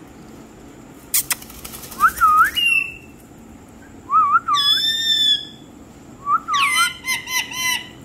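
Indian ringneck parakeet calling in three high-pitched bouts of squawks and whistly chatter, with gliding pitch. A short burst of noise comes about a second in.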